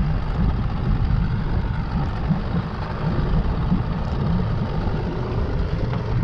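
Wind buffeting the microphone out on open water: a steady, uneven low rumble.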